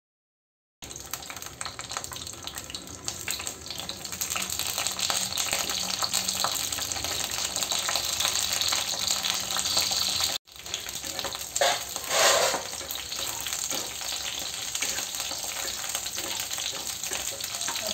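Small slit brinjals (eggplants) sizzling as they fry in hot sesame oil in a kadai, beginning about a second in. Later they are stirred with a wooden spatula, and the sizzle turns briefly louder about two-thirds of the way through.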